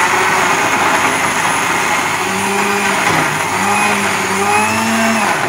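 Countertop electric blender running steadily, grinding a wet spice paste of chillies and lemongrass into a smooth paste; the motor's pitch wavers slightly as the load shifts, and it cuts off at the very end.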